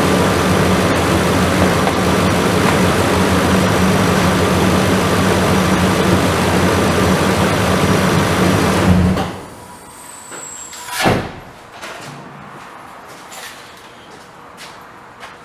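2015 Nissan Titan's 5.6-litre V8 idling steadily after an oil change, run briefly so the fresh oil circulates, then shut off about nine seconds in. A sharp knock follows about two seconds later, then a few faint clicks.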